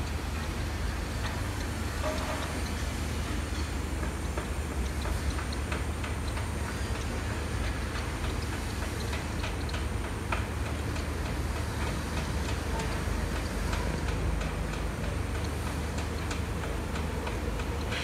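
Steady low rumble with many faint, irregular ticks and clicks scattered over it.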